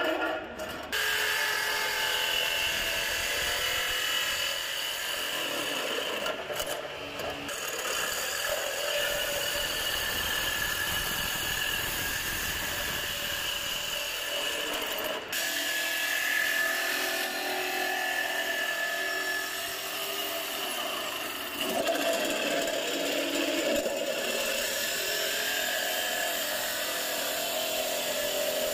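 DeWalt jigsaw cutting through thin galvanized sheet-steel electrical trunking, the blade chattering steadily through the metal. There is a brief break about halfway through.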